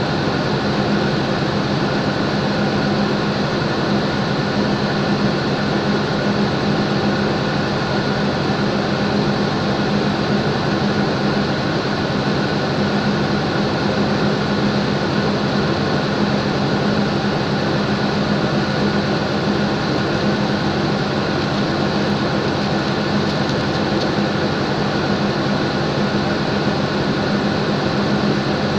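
State Railway of Thailand diesel-electric locomotive No. 4118 idling while stopped at a platform: a steady engine drone with a strong hum, unchanging throughout.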